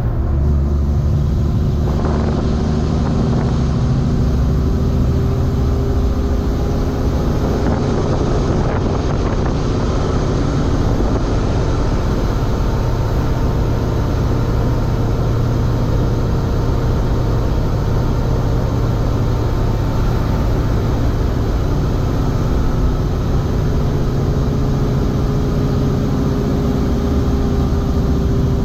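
Diesel engine of a tractor-trailer running steadily while driving, its pitch drifting slowly up and down with engine speed.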